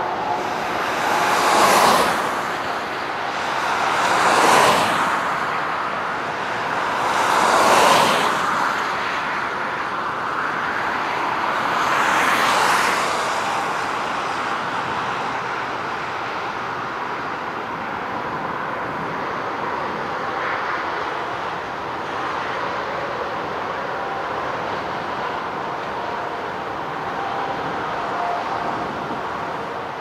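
Steady outdoor noise in strong wind. In the first half, four swells of noise each rise and fall over a second or two, like vehicles passing close by; after that the noise stays even.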